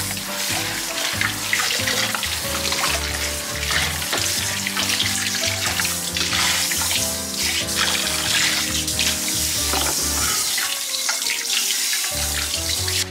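Kitchen tap running into the sink as dishes are washed by hand, water splashing over a frying pan, with background music playing throughout.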